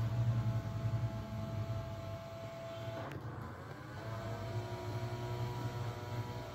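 Small electric motors of a hobby gripper robot running with a whine over a steady low hum. About three seconds in there is a click, and the whine drops and then climbs back in pitch.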